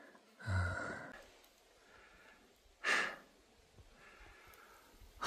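A man breathing hard from the exertion of climbing a steep slope: a voiced sigh about half a second in, then a sharp puff of breath near the middle, with faint breaths between.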